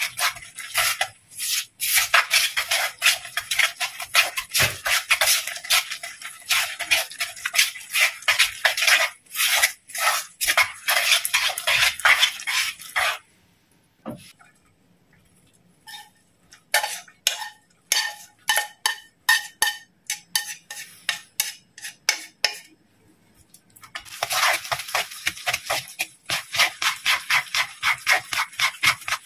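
Wooden spatula stirring a raw minced-meat siomai filling in a pot, with quick, even scraping and knocking strokes against the pot, several a second. The strokes stop about 13 seconds in. After a short pause, slower, scattered clacks of chopsticks mixing follow, and fast spatula stirring starts again at about 24 seconds.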